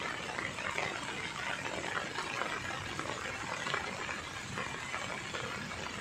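Floodwater of the swollen Basantar river rushing and churning past the concrete piers of a check dam, a steady, even rushing sound.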